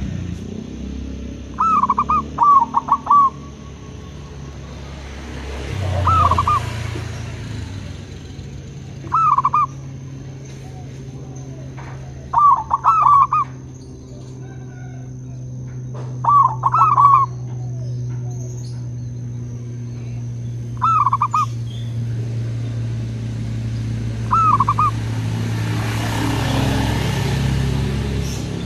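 Zebra doves (perkutut) cooing: short runs of quick rolling notes every few seconds, about eight phrases in all, over a steady low hum.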